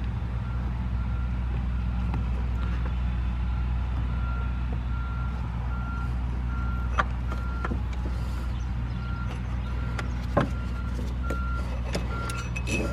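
A vehicle engine running steadily, with a short high electronic beep repeating at uneven gaps. Two sharp clicks break in, one about halfway through and one a few seconds later.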